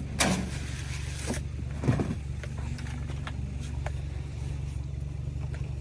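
A farm vehicle's engine running at a steady idle, a low even drone, just after starting up, with a couple of short knocks early on.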